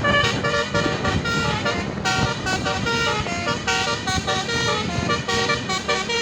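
Basuri multi-tone 'telolet' bus horn playing a quick tune of short notes that step up and down in pitch.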